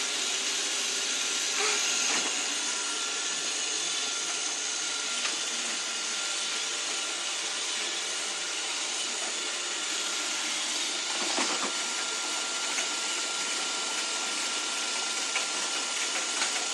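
Robot vacuum cleaner running with a steady whirring hiss, with a faint knock about two seconds in and another about eleven seconds in.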